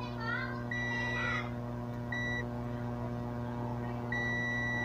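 Multimeter continuity buzzer beeping as its probes touch the legs of a CRT TV's horizontal output transistor: a long beep about a second in, a short one around two seconds, and another starting near the end. The beeping shows a short across the transistor, which is judged broken. A steady low mains hum runs underneath.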